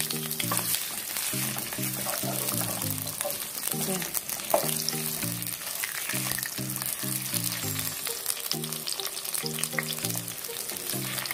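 Sliced onion and garlic cloves sizzling steadily in hot oil in a clay cazuela, stirred with a wooden spoon that clicks now and then against the pot. A simple background melody of short stepping notes plays under it.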